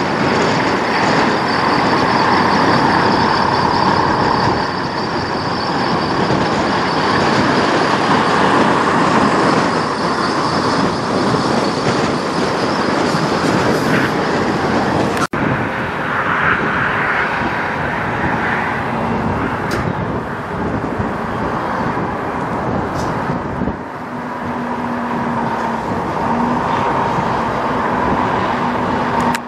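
Semi-truck diesel engines running as the trucks pull slowly past. First a Freightliner Cascadia hauling tanker trailers, then, after an abrupt switch about halfway through, a Volvo VNL tractor pulling a dry-van trailer.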